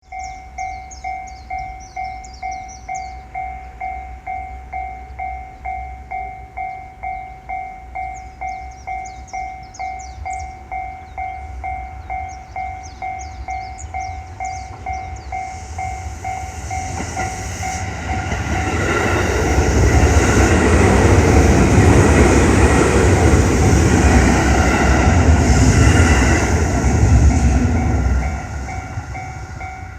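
Japanese level-crossing alarm bell ringing steadily, just under two strikes a second, as a JR West 205 series electric train passes slowly over the crossing. The train's running noise builds from about halfway through and is loudest for several seconds. It then drops away near the end while the bell keeps ringing.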